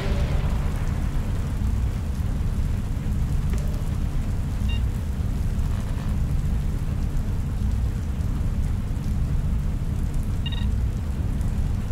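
Sci-fi room ambience soundscape: a steady low rumbling drone under a soft hiss like rain. Two short electronic beeps sound, one about five seconds in and one near the end.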